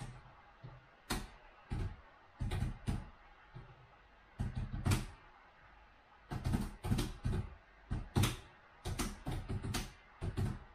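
Laptop keyboard being typed on hard: irregular runs of heavy keystroke clicks and thumps with short pauses between them.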